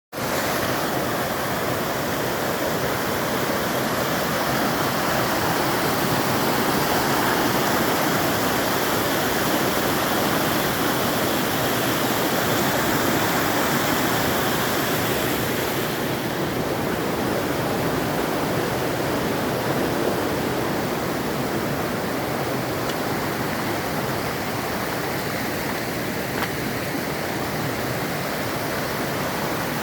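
Stream water rushing steadily. About halfway through, the higher hiss softens somewhat.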